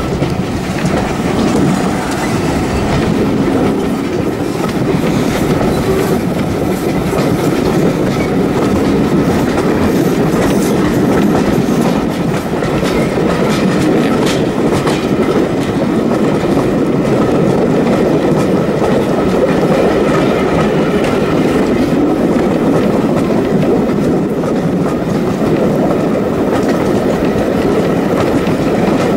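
Heritage steam railway carriage running along the track: a steady rumble of wheels on the rails, with scattered clicks.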